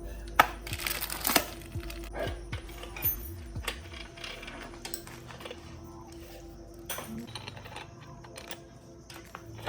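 Irregular sharp metallic clicks and taps of small parts and tools being handled, densest in the first second and a half, over faint background music.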